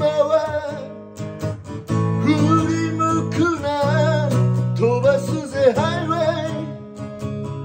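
A man singing while strumming a 1967 Gibson J-50 acoustic guitar, with held sung notes over steady strums.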